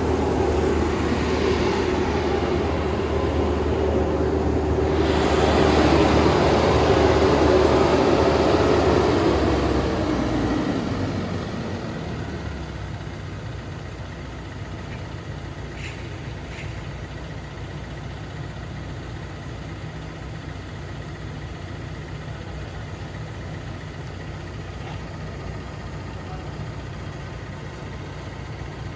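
Merlo telescopic forklift's diesel engine running loudly, then dropping to a quieter steady run about eleven seconds in.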